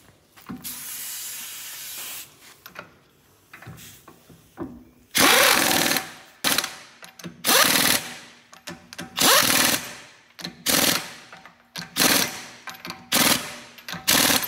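Pneumatic impact wrench working the wheel nuts during a tyre change, run in about eight short, loud bursts roughly a second or so apart. Before them comes a spell of hiss of about a second and a half.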